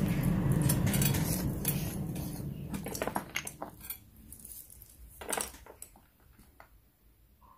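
Clinks and knocks of small glass and plastic powder jars and a thin metal spatula handled on a tabletop, several separate sharp clicks after a low rumbling noise in the first few seconds.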